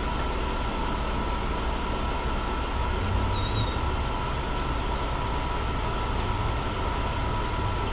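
Pickup truck engine idling steadily, left running to recharge its battery.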